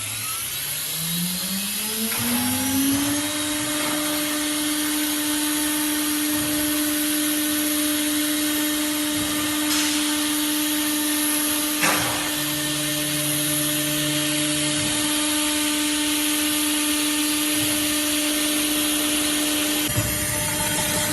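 CNC router's electric spindle spinning up, its whine rising in pitch over about three seconds and then running steady at speed. A sharp click about twelve seconds in, followed briefly by a lower motor hum, and rougher noise joins near the end.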